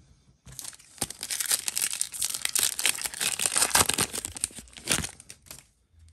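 Plastic wrapper of a trading-card pack being torn open and crinkled: dense crackling from about half a second in, stopping shortly before the end.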